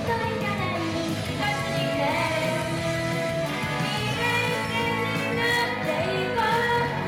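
Live J-pop idol song: young female voices singing into microphones over an upbeat instrumental backing, amplified through a hall's sound system.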